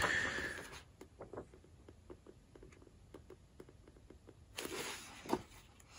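Paper pages of a thick hardcover book being handled and turned: a papery swish as a page turns at the start, then faint taps and rustles, and another rustle with a sharp tap about five seconds in.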